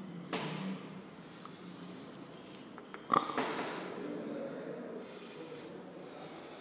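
Chalk drawing on a chalkboard: a short scratchy stroke just after the start and a longer one about three seconds in, over a steady low electrical hum.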